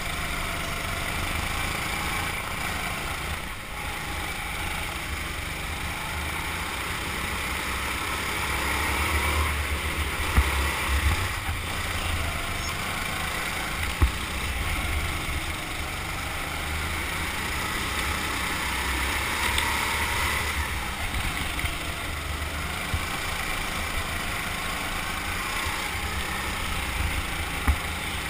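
Rental go-kart running at speed around an indoor track, heard from a camera mounted on the kart: a steady drone of motor and tyres over a low rumble, with a few sharp knocks about ten seconds in, at about fourteen seconds, and near the end.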